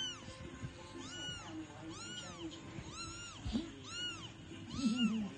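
A kitten meowing insistently, six high-pitched meows about a second apart, each rising and then falling in pitch.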